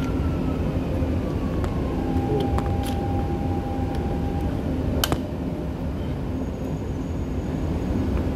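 Alstom metro train running and slowing as it pulls into an underground station platform, heard from inside the car: a steady low rumble with a thin whine and a few sharp clicks, one about five seconds in.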